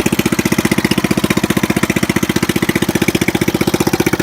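Five-horsepower single-cylinder Briggs & Stratton engine of a riding lawnmower running steadily after its first start of the season, with a fast, even firing beat.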